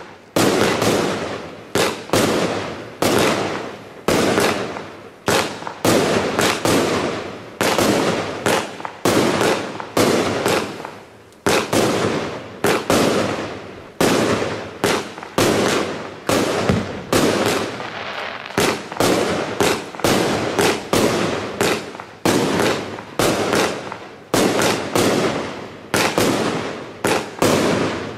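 Piromax Explosion 61, a 61-shot 25 mm fireworks cake, firing its shots in a steady string: sharp bangs about two a second, each dying away quickly before the next.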